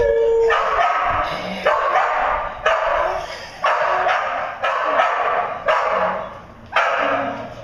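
Dog barking over and over, about once a second, each bark loud and drawn out.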